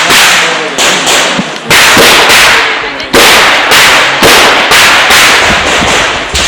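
A string of .38 Special revolver shots from a Chiappa Rhino, fired in quick succession at about one every half second to a second, each with a ringing tail.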